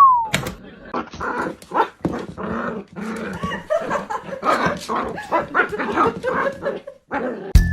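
A dog vocalizing in a long run of short, irregular calls. A short falling whistle-like glide sounds at the very start.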